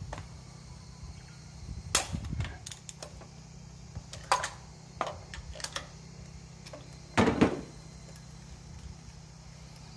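Irregular metallic clinks and knocks of a spark plug socket, extension bar and hand tools being worked in the plug holes of a K6A three-cylinder engine. The loudest knocks come about two seconds in and again near the end, over a low steady hum.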